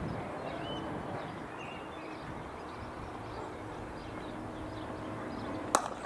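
Open-air background with a faint steady hum, then near the end one sharp crack of a cricket bat striking the ball.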